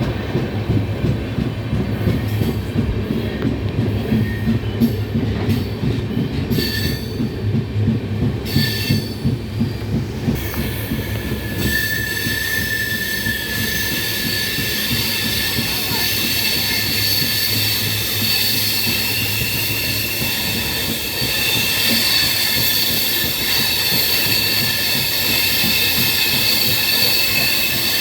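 Train running on the rails, rumbling and rattling with uneven thumps. About twelve seconds in, a steady high-pitched wheel squeal sets in and keeps on over the rumble.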